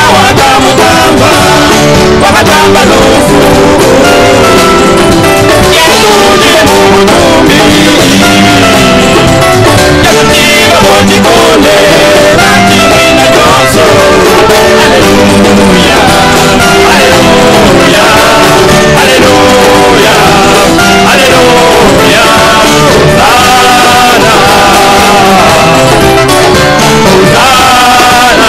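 A group of male singers singing a church song together into microphones, loud, with a band playing along.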